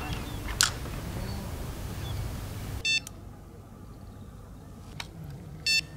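Electronic carp bite alarm giving two short beeps about three seconds apart, each a single buzzy steady tone, as the line is set into the alarm on the rod pod. A brief sharp noise comes just over half a second in.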